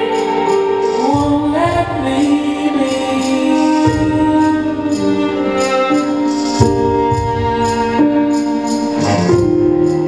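Recorded music for a dance: held melody notes that step to new pitches every second or so, over a light, regular high percussion.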